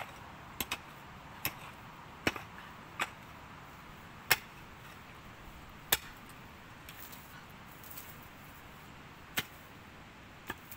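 A hand digging tool striking stony soil in a trench dug by hand to expose a buried water pipe: about nine sharp, separate strikes at irregular intervals, the loudest a little past the middle.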